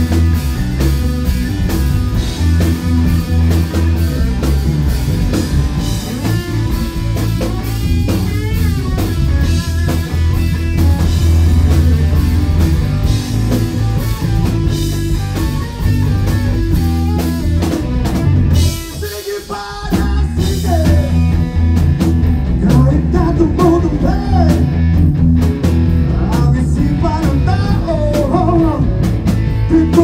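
Live rock band playing: distorted electric guitars, bass and a drum kit, with a male singer. The band drops out briefly about two-thirds of the way through, then comes back in.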